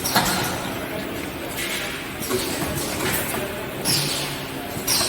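Automatic spider-strainer and skimmer making machine running, with a sharp clink and hiss repeating about every second and a half as it cycles.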